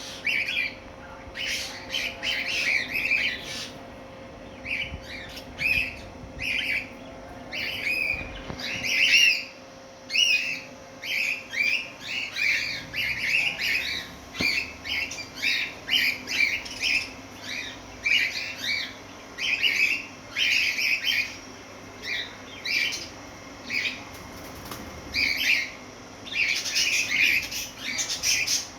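Pet parrots calling in a run of short, sharp calls, several a second, broken by brief pauses.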